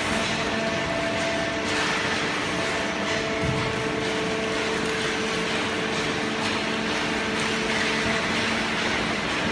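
Hydraulic cardboard baler running, its electric motor and hydraulic pump giving a steady hum with a hiss over it and a few faint knocks.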